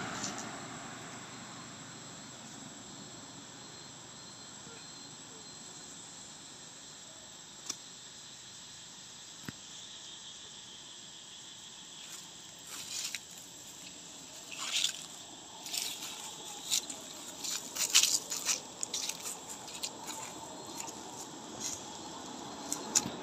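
Quiet outdoor ambience with a faint steady insect drone, then, from about halfway, a run of short irregular crackles of dry fallen leaves being disturbed, densest in the latter part.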